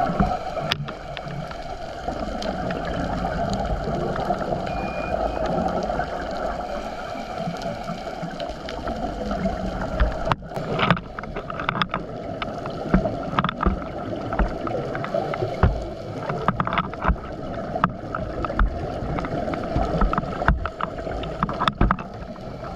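Dive boat under way: a steady engine-and-water drone, with a string of short knocks and thuds in the second half.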